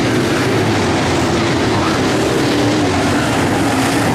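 Pack of dirt late model race cars' V8 engines running hard on the track, a steady loud roar, with one engine note dropping slightly in pitch near the end as a car goes by.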